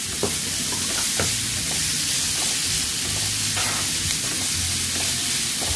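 Pickled mustard greens sizzling in a hot oiled nonstick pan as they are stir-fried with wooden chopsticks. The chopsticks click against the pan a few times.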